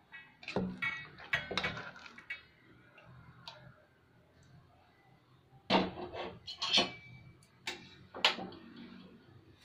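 A plastic rice spoon knocking and scraping against a metal pot and a steel plate as thick cooked rice is scooped out and spread, giving short clinks, some of them ringing briefly. The clinks come in two bunches, one near the start and one past the middle.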